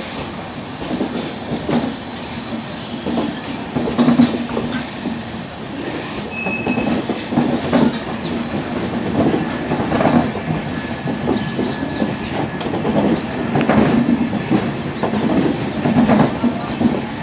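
LHB passenger coaches of an arriving express rolling past, wheels clacking irregularly over rail joints over a steady low rumble.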